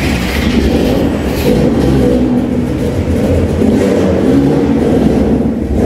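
Motorbike engines running through the tunnel, a steady loud engine sound whose pitch wavers slightly.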